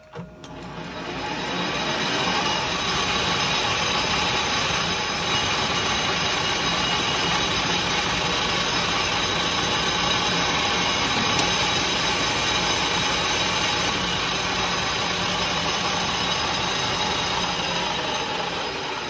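Metal lathe running, its tool cutting the final ten thou from the dish in an aluminium piston crown. The sound builds over the first couple of seconds, then holds steady.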